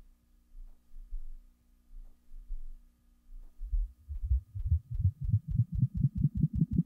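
Playback noise from a blank stretch of videotape: a low hum with irregular low throbs, then, from about three and a half seconds in, a regular pulsing that gets louder, faster and higher in pitch.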